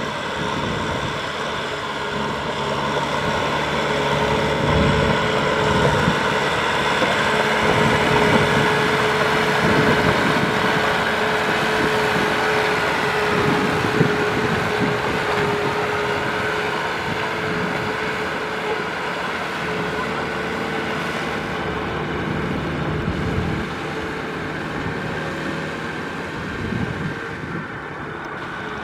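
Kubota M6040 tractor's four-cylinder diesel engine running steadily under load as it pulls a trailer of rice sacks through mud. It grows louder a few seconds in, then eases off.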